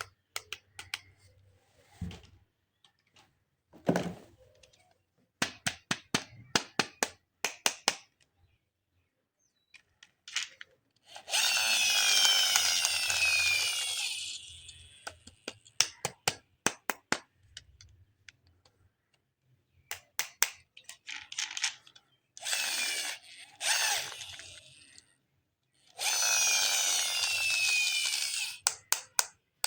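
A battery-powered Spider-Man toy running in three bursts of a few seconds each, a buzzing whir with quickly repeating falling sweeps, between clusters of plastic clicks and taps from handling and switching it.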